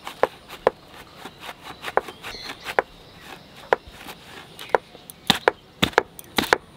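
A hard raw jackfruit being sliced lengthwise on a boti, its fixed curved blade forced through the tough rind: a string of sharp crunching cracks, coming closer together and louder near the end.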